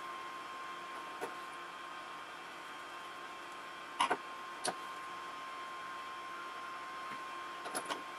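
A few light clicks and taps of small parts and hand tools being handled while an RC car's front hub is worked on: a click about a second in, a quick double click about four seconds in followed by another, and a few small ticks near the end, over a steady faint hiss with a constant high tone.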